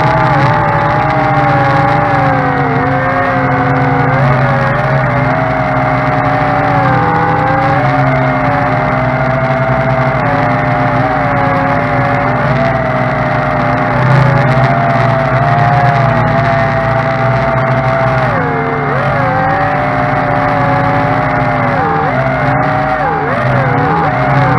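Quadcopter motors and propellers whining steadily. The pitch wavers up and down as the throttle changes in flight.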